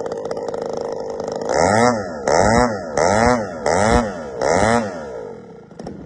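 Zenoah G62 two-stroke single-cylinder gas engine of a large radio-controlled AT-6 model, exhausting through a custom straight pipe. It idles steadily, then is revved up and back down five times in quick succession, about one blip every three quarters of a second, before settling back to idle.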